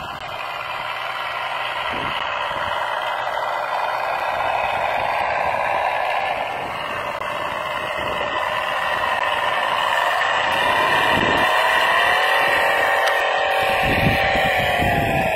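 Radio-controlled model car running: a steady whir whose pitch rises about ten seconds in, holds, and falls again near the end.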